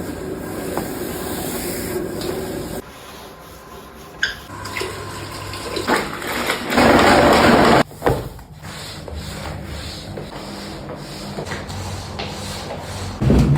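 Water running and splashing during cleaning, in several short clips that change abruptly; the loudest is a rush of water lasting about a second, about seven seconds in.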